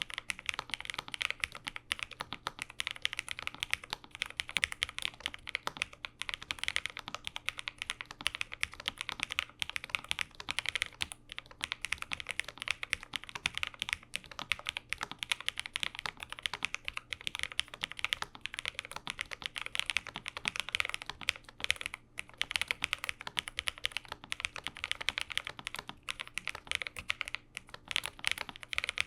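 Steady typing on a Lofree Flow Lite low-profile mechanical keyboard with Kailh low-profile full-POM switches in an ABS case. Keystrokes come in a dense, continuous run of soft clicks.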